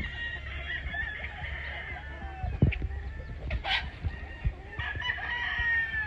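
Gamefowl roosters crowing, several overlapping calls, with one long crow near the end. A couple of sharp knocks sound about midway.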